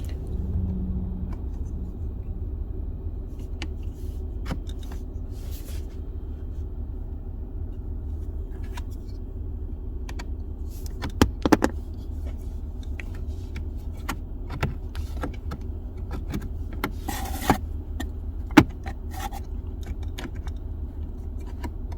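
Steady low hum of the running car inside the cabin, with scattered clicks, a short scrape and a few sharp snaps as a knife and plastic pry tool work the plastic trim of the rear climate-control panel loose.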